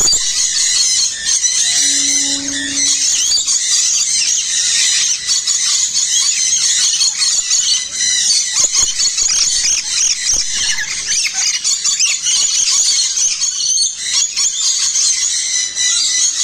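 Many small aviary birds chattering and chirping together in a dense, continuous, high-pitched din.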